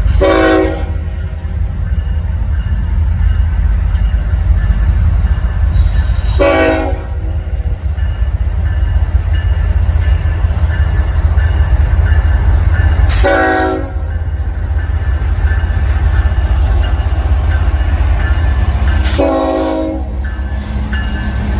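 Locomotive horn sounding four short blasts, each about a second long and some six to seven seconds apart, over a steady low rumble.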